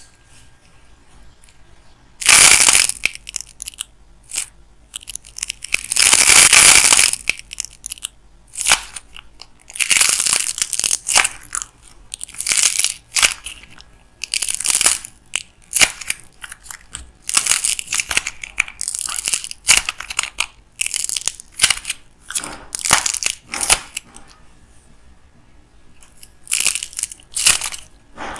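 Hands crushing a white clay figure with a hardened outer skin: crisp crackling and crunching as the brittle shell breaks up and the soft clay inside is torn, in irregular bursts with short pauses, one long run about six seconds in.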